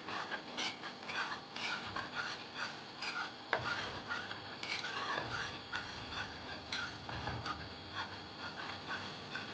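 Kitchen food preparation: a utensil making irregular, short rubbing and scraping strokes, a few each second.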